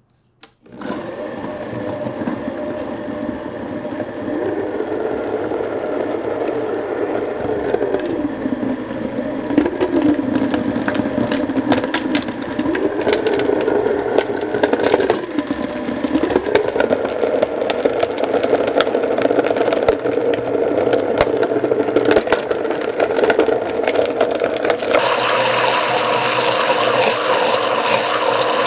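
High-speed blender starting up about a second in and running hard on fruit, soy milk and ice, its motor pitch wavering as the load shifts, with scattered knocks of chunks against the jar. Near the end the sound turns brighter and steadier as the mixture turns smooth and spins in a vortex.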